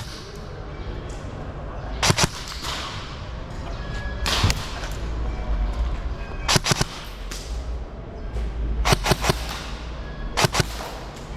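Airsoft guns firing in short bursts of two to four sharp snaps, about five bursts spaced a couple of seconds apart, over a low steady rumble.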